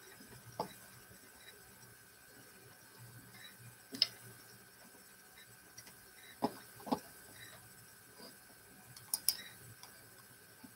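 Faint, scattered light clicks and taps, about six of them at irregular intervals, two pairs close together, over a steady thin hum.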